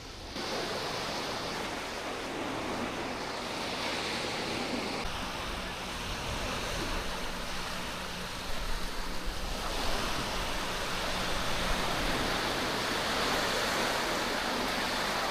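Sea surf washing onto a sandy beach: a steady rush of waves, with a low rumble joining in about a third of the way through.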